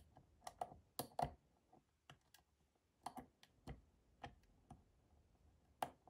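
Faint, irregular little clicks and ticks of a dimple pick working the pins inside an ABS Avocet dimple lock cylinder, about a dozen over a few seconds, the loudest near the end.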